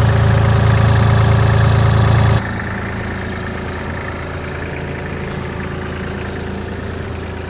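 IHI 35N mini excavator's diesel engine idling steadily. About two and a half seconds in, the low rumble drops abruptly to a quieter but still steady idle.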